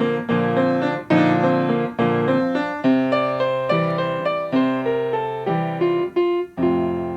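Instrumental keyboard passage in a piano sound, with chords struck about once a second and each ringing and fading before the next, under a rock song with no singing.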